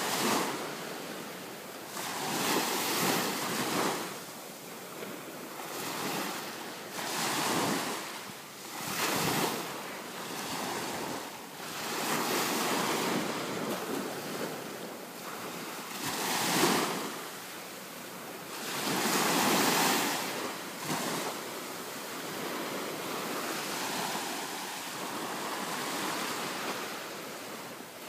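Small ocean waves washing ashore, the surf swelling and falling every few seconds, with wind buffeting the microphone.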